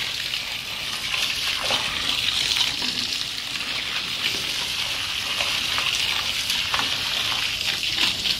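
A jet of water from a hose spraying onto a pile of wet sand and a plastic sheet: a steady splashing hiss.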